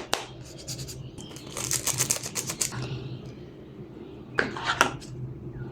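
Quick runs of light clicks and taps from handling during a smartphone unboxing: a rapid cluster about a second and a half in, and a few more clicks near the end.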